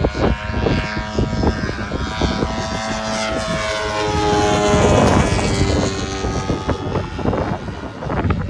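Giant RC Cub's DLE-170 twin-cylinder two-stroke gas engine and propeller droning as the plane makes a low pass. It grows loudest about five seconds in, and its pitch falls as it goes by.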